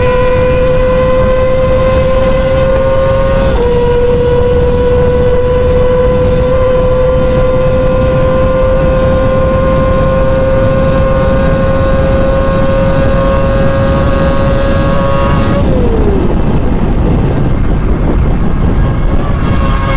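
Four-cylinder sport bike engine screaming near its redline at full throttle, over heavy wind rush. Its high, steady pitch dips briefly at an upshift about three and a half seconds in, then creeps slowly higher. About fifteen seconds in the throttle closes, the pitch glides down, and the engine falls away under the wind noise.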